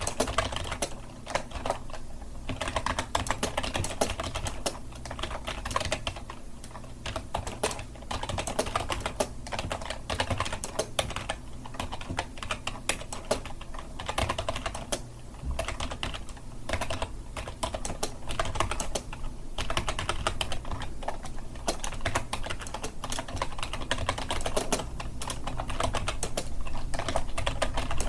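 Continuous fast typing on a computer keyboard: a dense, uneven stream of key clicks with short pauses between bursts.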